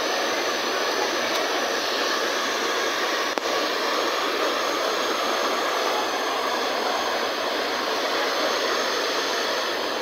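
Sayonapps SY300 Gold handheld hair dryer running, a steady even rush of blown air and motor-fan noise.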